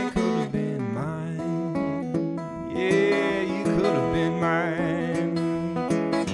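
Steel-string acoustic guitar played solo in an instrumental passage of a folk-blues song, its notes ringing on, with a wavering higher line near the middle.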